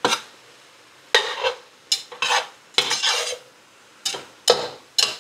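A stirring utensil scraping across a pan of browning beef, onion and garlic in about eight short strokes, with a faint sizzle underneath.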